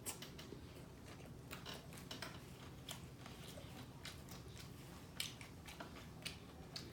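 Quiet chewing of a soft-shell taco tortilla: scattered wet mouth clicks and smacks over a steady low background hum.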